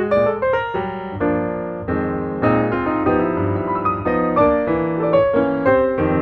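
Background piano music: quick runs of notes, with longer held chords in the middle.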